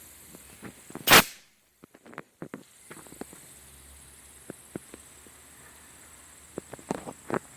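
A short, loud blast of compressed air from a compressor's blow gun about a second in, followed by scattered small clicks and taps, with a cluster of them near the end.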